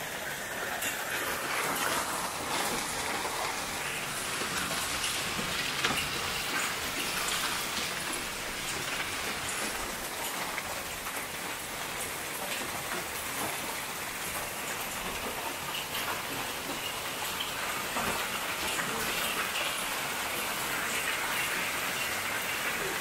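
Heavy hailstorm: hail and rain falling hard and steadily, a dense hiss full of small clicks as hailstones strike the ground, deck and plants.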